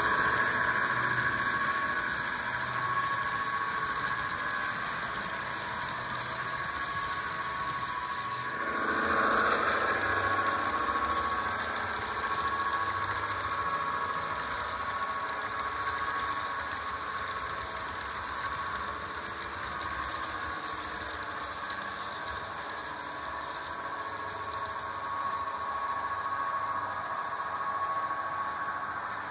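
HO-scale model diesel locomotive's DCC sound decoder playing a diesel prime mover through its small speaker, running steadily with the model's mechanism on the track. The sound swells briefly about nine seconds in.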